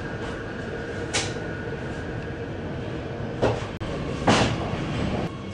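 Oslo Metro MX3000 train heard from inside the car as it runs into an underground station: a steady rumble of wheels on rail with a faint running whine. Two short, loud bursts of noise come a little after halfway, the second the loudest, just after the sound briefly cuts out.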